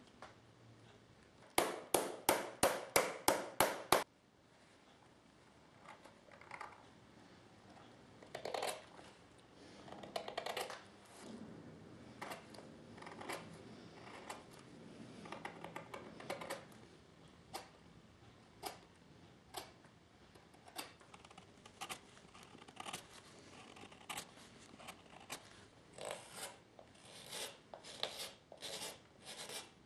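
Hand tools working a leather shoe: a quick run of about nine sharp snips or taps a couple of seconds in, then scattered fainter clicks and scraping on the leather.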